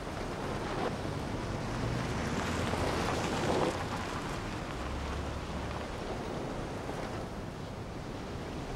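A Toyota HiAce minibus driving on a sandy dirt road, its engine and tyres swelling as it passes about three seconds in, over a steady hiss of surf and wind.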